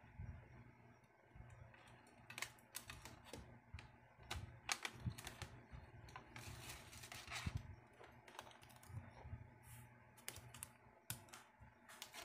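Irregular light clicks, taps and knocks from handling a DH48J digital counter and its black project box as the counter is fitted in and the box is set on the bench, with a short scraping, rubbing sound about six to seven seconds in.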